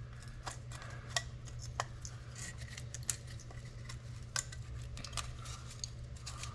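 Irregular small clicks and scrapes of hard plastic being handled, as melted plastic is picked away from the grinder-cut edges of a plastic park-light lens, over a steady low hum.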